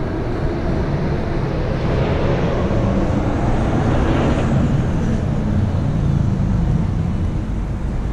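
Street traffic noise: a steady rumble of motor vehicles, swelling as one passes about halfway through and then easing off.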